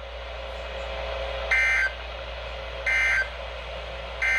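Three short data bursts about a second apart from a weather radio's speaker: the EAS end-of-message tones that close a NOAA Weather Radio alert, here a tsunami warning. They play over a steady hiss.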